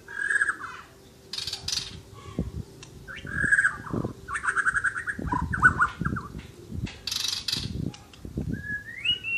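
White-rumped shama (murai batu) singing in full song: varied whistled phrases alternating with harsh, high rasping notes, a new burst every second or so. Low dull bumps sound in between the phrases.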